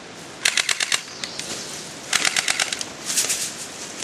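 Airsoft gun firing three short automatic bursts, each a rapid run of sharp snapping shots at roughly a dozen a second.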